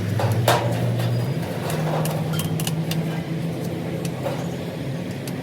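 Workshop noise: a low steady motor hum that shifts pitch a couple of times, with scattered sharp metal clicks and taps.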